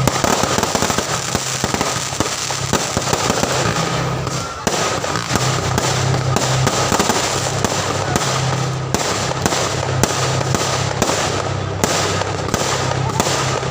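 Fireworks going off in a dense, continuous crackle of bangs and pops, with a brief lull about four and a half seconds in.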